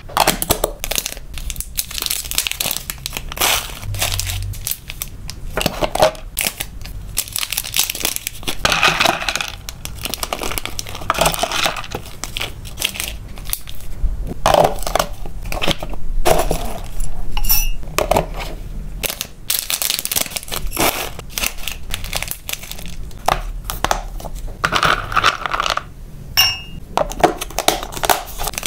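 Close-up handling noise of hamster-food packing: plastic snack bags crinkling and tearing open, dry pellets and dried vegetable pieces rattling and clinking as they are scooped and poured into glass and plastic containers, and sharp clicks and taps of hard plastic tubs and lids.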